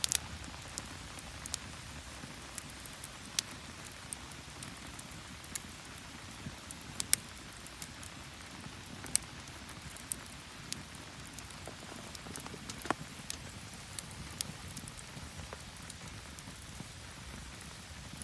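Steady rain falling, an even hiss with scattered sharp ticks of drops landing close by.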